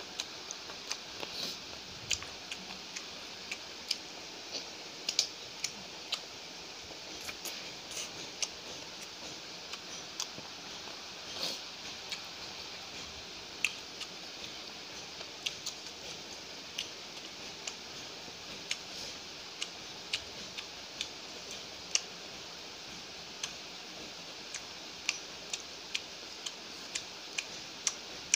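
Close-up eating sounds of a person chewing food eaten by hand: irregular sharp wet mouth clicks and smacks, a few each second, over a steady background hiss.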